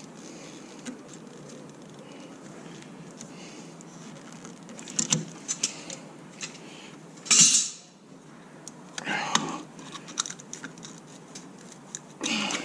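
Metal clinks and scrapes as a stuck rear brake pad is worked against its caliper bracket, with scattered light clicks and a loud half-second scraping clatter about halfway through, then more clatter later on.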